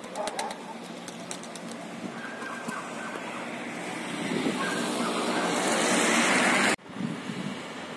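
Outdoor street noise: a passing vehicle's engine and tyre noise swelling louder over several seconds, then cut off suddenly near the end.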